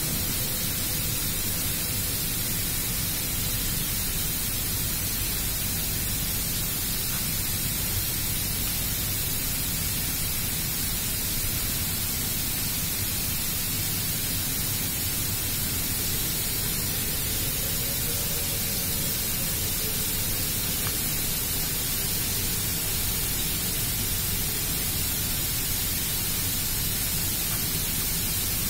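Steady, even hiss with no tool clicks or knocks standing out, and a faint wavering tone rising and falling about two-thirds of the way through.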